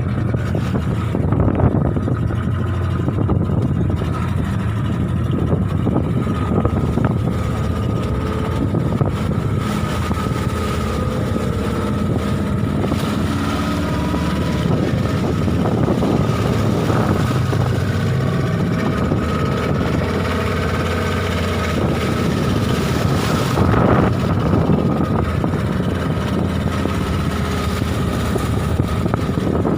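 Small fishing boat's motor running steadily, a constant low rumble with a steady whine on top.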